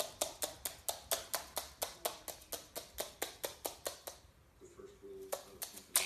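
White-bellied caique hopping across a wooden floor, its feet tapping in quick, even clicks, about five a second, for about four seconds, then a few more taps near the end.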